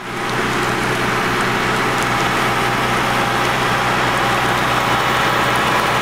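Tractor running steadily, its engine hum under a loud, even rushing noise that holds without change.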